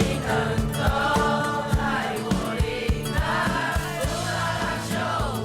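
A group of voices singing together over band accompaniment with a steady drum beat.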